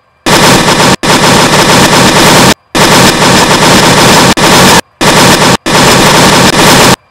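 Loud, heavily distorted noise that saturates the recording across all pitches. It cuts out abruptly to near silence about half a dozen times, each gap a fraction of a second long.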